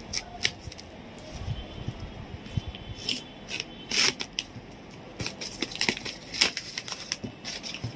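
Plastic-wrapped courier parcel being cut and torn open by hand: crinkling plastic wrap and scraping, tearing packing tape in irregular short bursts.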